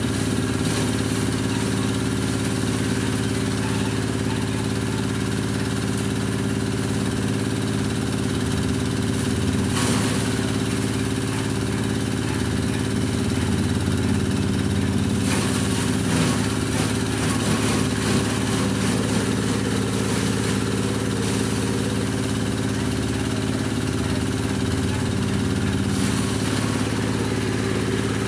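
Motor-driven grass chopper (chaff cutter for livestock feed) running steadily on its small engine while its blades cut fresh grass fed into the hopper. A rougher hiss from the chopping rises briefly about ten seconds in, around fifteen seconds in, and near the end.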